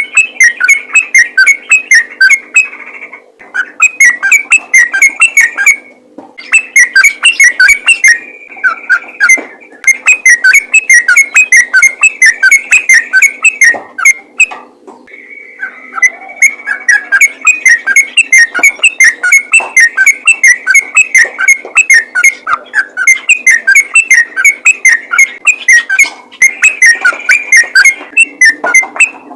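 Yellow-vented bulbul (trucukan) singing loud, rapid runs of short whistled notes several times a second, in long unbroken bursts with brief pauses about 3, 6 and 14 seconds in.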